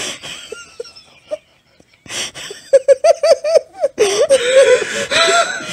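A man laughing hard: a gasp, then a near-silent pause, then from about two seconds in a quick run of short laughs that grows into continuous, breathy laughter near the end.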